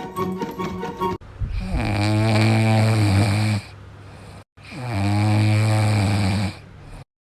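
Two long, low snores about a second apart, most likely from a sleeping pet. A short stretch of music ends about a second in, before the first snore.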